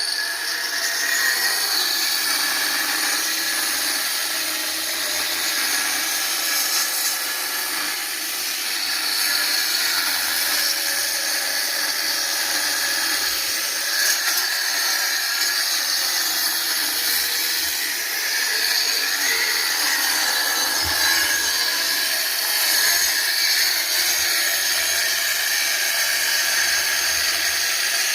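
Heavy-duty electric drill running continuously into a wall, a steady high whine with grinding noise and slight rises and falls in level.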